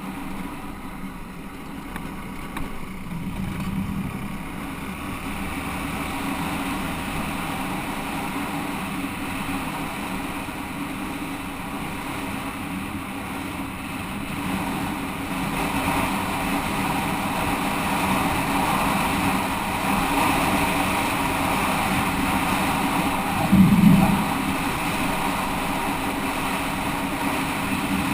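Motorcycle engine running steadily on the move, getting a little louder about 16 seconds in, with one short, louder low sound about 24 seconds in.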